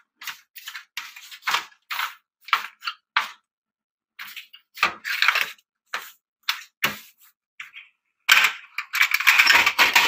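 Brushing strokes scrubbing dust off a CRT monitor's perforated sheet-metal shield, short and quick, a couple a second, with a pause near the middle. Near the end comes a longer, louder stretch of scraping and rattling as the metal is handled.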